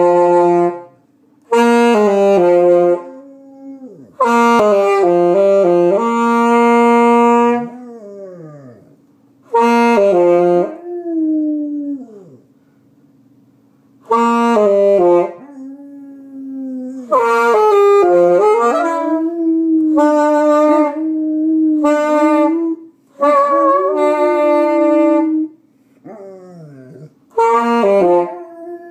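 A learner plays short saxophone phrases of held notes with pauses between them, while a Rottweiler howls along. Her howls hold under the notes and slide down in pitch in the gaps between phrases.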